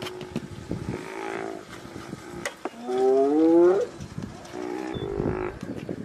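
Animal cries at a spotted hyena kill: drawn-out pitched calls, the loudest about three seconds in and rising in pitch, with scattered short knocks between them.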